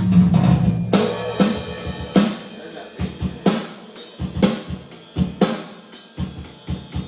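Electronic drum kit played through its sound module, tried out just after assembly: a loose, uneven run of drum-kit hits, mostly two or three a second, with a ringing low drum at the start.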